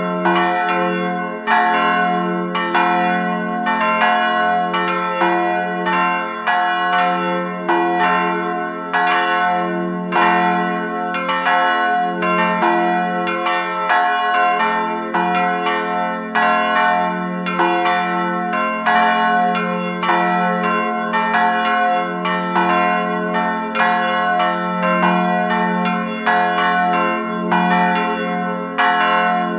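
Three church bells ringing together in a continuous peal, a new stroke coming about every three quarters of a second, each bell's tone ringing on under the next.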